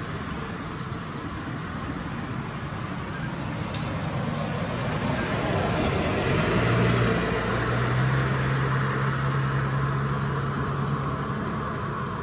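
Steady outdoor background noise with a motor vehicle's engine running close by: a low hum that swells about six and a half seconds in, holds for about four seconds, then fades.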